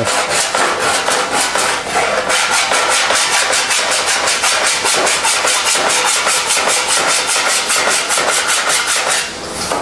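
Hand file stroked over a planished TIG weld on a sheet-metal fender: metal scraping on metal in a fast, even rhythm as the file knocks down the high spots and shows up the low ones. The filing stops shortly before the end.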